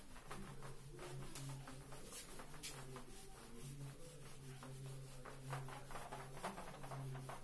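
Whiteboard duster rubbing marker ink off a whiteboard in repeated, irregular wiping strokes, faint.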